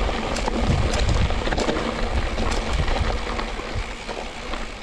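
Riding noise from an electric mountain bike, a Cube Stereo Hybrid 140, on a trail: low wind rumble on the microphone and tyre noise, with scattered clicks and rattles. It grows quieter near the end.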